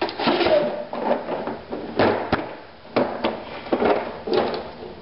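Air cleaner parts being handled and pulled off a small Honda four-stroke engine: irregular clattering and rattling, with sharp knocks about two and three seconds in.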